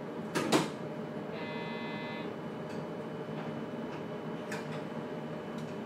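Inside a JR Kyushu 811 series electric train car just after the closing-doors announcement: two sharp thuds about half a second in, typical of the doors shutting, then a short electric buzzer of under a second, over the car's steady hum, with a few faint clicks later on.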